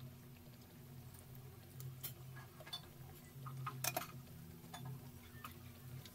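Breaded tuna pies shallow-frying in hot oil in a pan: scattered crackles and pops over a steady low hum, the loudest pop about four seconds in.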